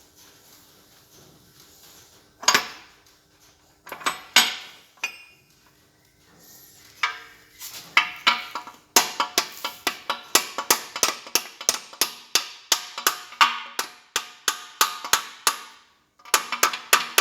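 Hammer blows on steel as the mainshaft is bumped into a tractor gearbox: a few single knocks, then a run of quick taps, about three or four a second, each with a short metallic ring.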